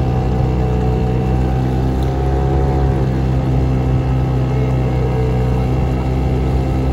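Motorboat engine running steadily at an even speed, a constant low drone with no change in pitch.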